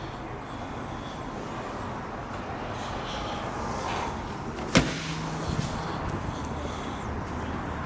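A car door shutting once, a single sharp thud about two-thirds of the way through, over steady background noise.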